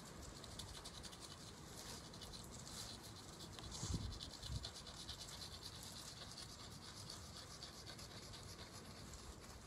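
Faint, rapid scratching of chalk on a concrete sidewalk, with two dull low thumps about four seconds in.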